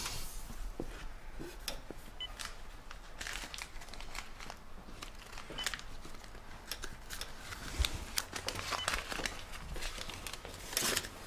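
Plastic packaging crinkling and rustling in irregular bursts as it is handled, loudest near the end. A faint short beep from a bedside monitor recurs every three seconds or so.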